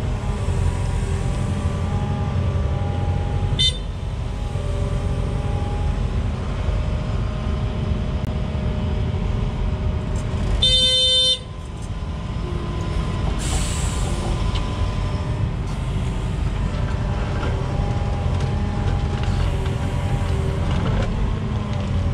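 Wheeled excavator's diesel engine running steadily, with a whine that shifts in pitch. A horn sounds one short toot about 11 seconds in.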